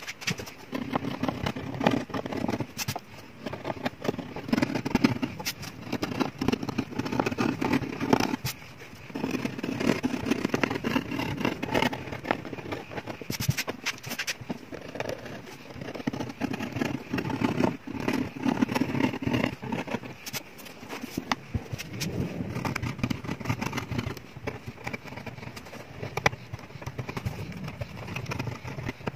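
A blade scraping old bridge glue off the top of a nylon-string classical guitar: rough, scratchy strokes with many small clicks. Under it is a low drone that swells and fades several times.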